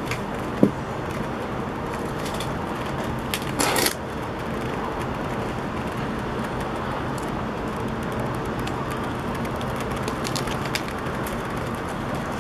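Steady hum of city traffic, with a sharp click less than a second in and a short, louder rush of noise about three and a half seconds in.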